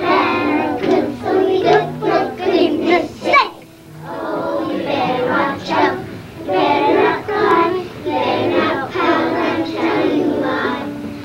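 Group of young children singing together as a choir, with a short break about three and a half seconds in before the singing resumes.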